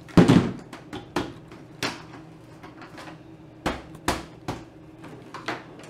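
Silverstone Raven RVZ01 Mini-ITX computer case being tilted and turned by hand to shake out a dropped screw: a heavy knock just after the start, then a scattering of sharp clicks and taps as the case and the loose screw knock about.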